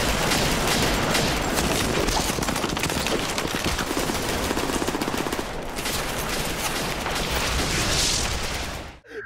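Anime gunfire sound effects: many guns firing at once in a continuous volley of rapid shots, breaking off suddenly near the end.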